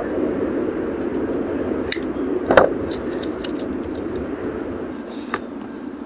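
Hand wire strippers clicking and snipping as they trim a wire: a few short sharp metallic clicks, the loudest about two and a half seconds in and another near five seconds, over a steady background hum.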